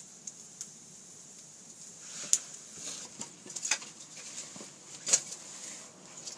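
Open wood fire crackling, with sharp irregular pops and snaps over a steady hiss; two louder pops come about two and five seconds in.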